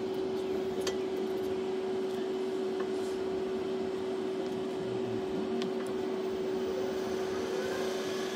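Pro-Cut X15 on-car brake lathe running, its drive motor turning the brake rotor on the car's hub: a steady hum with a constant tone and a few light clicks. The cutting bits are not yet cutting.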